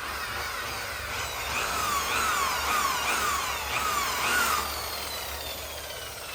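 Electric power tool motor whining, its pitch dipping repeatedly as it is loaded and picking back up, then winding down steadily after it is released.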